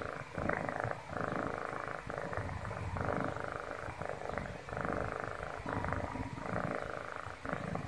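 Kitten purring close up, a steady buzz that swells and dips with each breath, about once a second.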